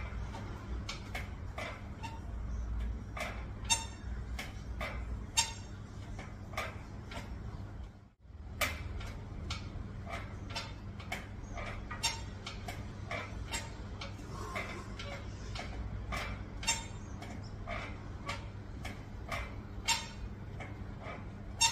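Repeated sharp clicks and knocks from a steel pull-up station as a man does pull-up reps on it, a few of the knocks louder, over a steady low hum. The sound drops out briefly about eight seconds in.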